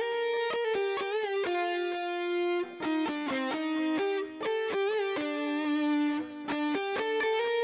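Instrumental music: a melodic lead line of distinct notes over a steady accompaniment, the held notes wavering with vibrato.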